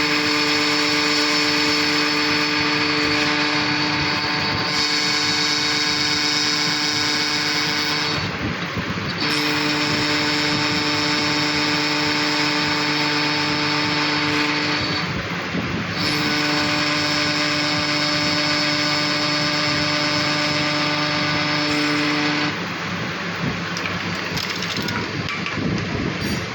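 Electric power tool motor running at a steady pitch in three runs of about six to seven seconds each, cut off and restarted twice with short pauses between, then stopping about four seconds before the end.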